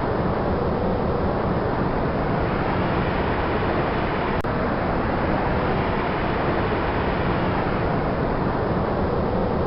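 Sandstorm sound effect: a steady rush of wind and blowing sand, its upper hiss swelling and easing slowly, with one brief click about four and a half seconds in.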